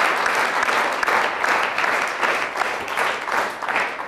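Studio audience applauding, a dense patter of many hands clapping that starts to die down at the very end.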